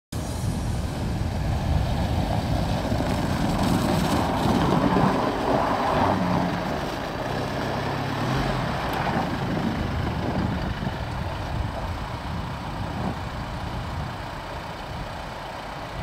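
Toyota Land Cruiser Prado SUV driving on a snow-covered road: steady engine and tyre noise, a little louder about four to six seconds in and easing off toward the end.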